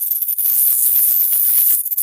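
Synthetic high-pitched alien insect chatter: a dense, rapid rattling hiss of clicks with small chirps riding on top, very high in pitch. It thins briefly near the end.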